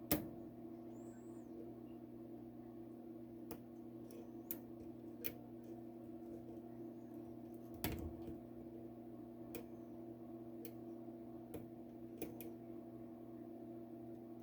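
Small, irregular metallic clicks and taps of a short hook pick and tension tool working the pins of a Master Lock 532, with a sharper click just after the start and another about eight seconds in. A steady low hum runs underneath.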